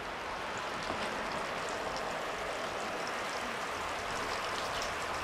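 Rain and running water: a steady splashing hiss with a scatter of small drip ticks.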